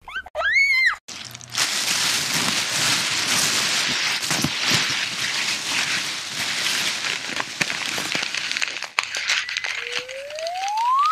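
Crinkling and rustling of plastic rubbish bags and wrappers, with many small crackles. It opens with a short whine that rises and falls, and near the end a smooth rising whistle comes in over it.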